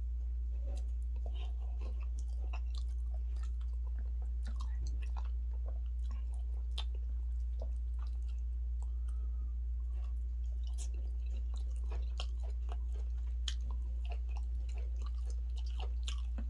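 Close-up chewing and wet mouth smacks of someone eating fufu and turkey stew, many small irregular clicks throughout. A steady low hum runs underneath.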